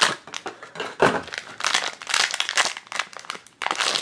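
Clear plastic wrapper crinkling and rustling in the hands as a small vinyl keychain is unwrapped from its package.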